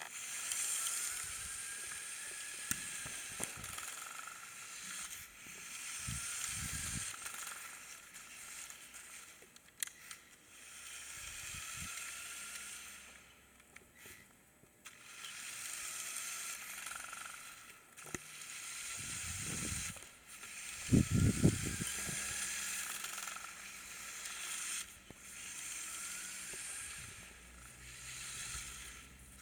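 Small remote-controlled Lego Technic car driving, its two large electric drive motors and gears whirring in repeated swells as it speeds up and slows, with scattered knocks and a louder burst of thumps about two-thirds of the way through.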